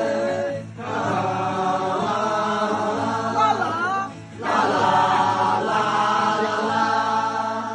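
A group of men singing together in chorus, holding long sung phrases and breaking off briefly twice between lines.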